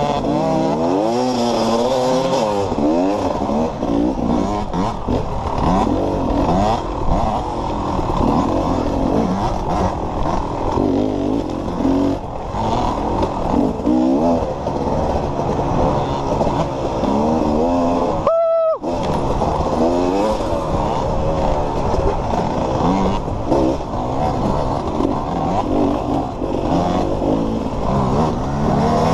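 Off-road dirt bike engine revving hard and constantly rising and falling in pitch as the rider accelerates, shifts and backs off through turns. Once, about two-thirds of the way through, it is cut for half a second by a steady tone.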